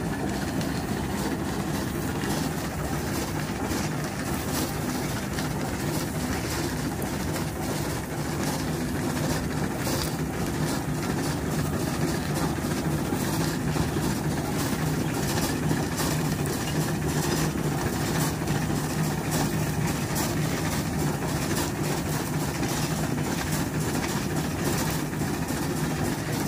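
Twin-cylinder Rumely steam traction engine running steadily under load while pulling a plow.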